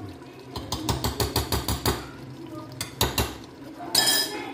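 A wooden spoon knocking against a clay cooking pot in a quick run of about a dozen taps, then a few more knocks and a short scrape near the end.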